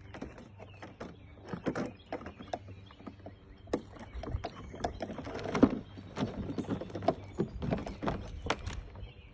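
Plastic hull of a TuckTec folding kayak being folded and fitted into shape by hand: irregular knocks, clicks and rattles of the plastic panels.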